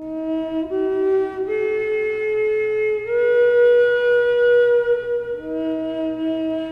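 Native American style flute in the key of E, made by Stephen DeRuby, playing a slow improvised melody. A new phrase steps up through three notes to a long held high note, then drops back to the low note, which is held to the end.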